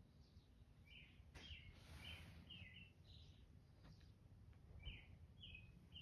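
Faint bird chirping: a string of short, falling chirps, about two a second, over a low steady background rumble.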